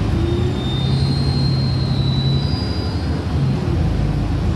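City bus engine idling steadily while stopped with the doors open, with a faint high whine over it for a couple of seconds about a second in.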